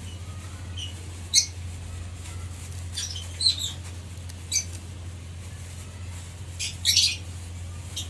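Pet lovebirds giving short, high-pitched chirps and squawks, about half a dozen scattered calls with the loudest near the start and near the end, over a steady low hum.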